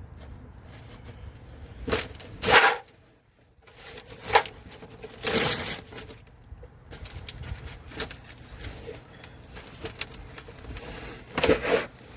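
Hand tools clanking and scraping on metal while rear shock absorber bolts are worked loose: a handful of separate sharp knocks and clinks with quieter handling noise between.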